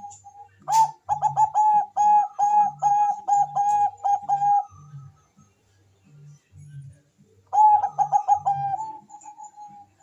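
Bangkok-type zebra dove (perkutut) singing: a fast run of short, evenly repeated cooing notes starting about a second in and lasting about four seconds, then a second shorter run near the end. Softer single notes fall between the runs, over faint low pulsing.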